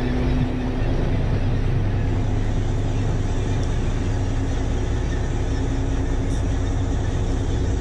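Tour boat's engine running with a steady low drone and hum while cruising, over a constant rush of water and wind noise.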